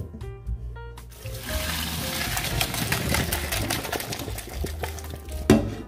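Hot pasta water and rigatoni poured from a pot into a plastic colander in the sink: a rushing, splashing pour that starts about a second in and runs for a few seconds, with a single sharp knock near the end. Background music plays throughout.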